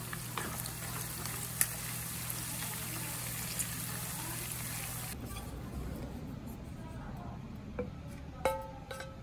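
Shrimp, sliced garlic and chilli sizzling in hot olive oil in a frying pan, an even hiss with scattered sharp pops. It cuts off abruptly about five seconds in. A few short plucked notes of background music follow near the end.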